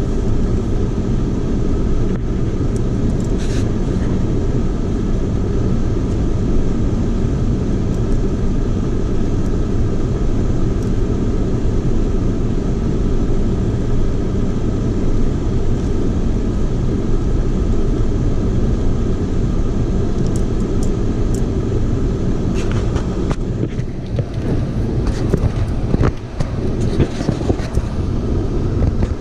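Car driving slowly over a rough, rocky dirt road, with steady engine and tyre rumble. Scattered clicks and knocks from rocks under the tyres come in over the last several seconds.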